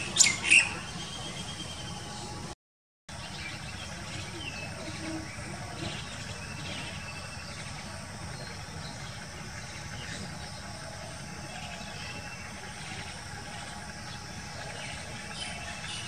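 Birds chirping: a few loud, sharp calls right at the start, then faint scattered chirps over a steady background hiss. The sound drops out for half a second about two and a half seconds in.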